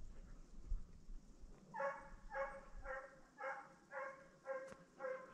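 Russian hound baying as it runs a hare. A steady run of about seven barks, roughly two a second, starts a little under two seconds in.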